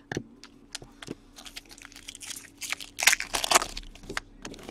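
Foil wrapper of a trading-card pack crinkling and crackling as it is handled, in irregular bursts that are loudest about three seconds in.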